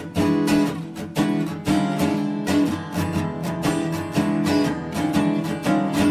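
Background music: acoustic guitar strumming and picking with a quick, steady rhythm of plucked notes.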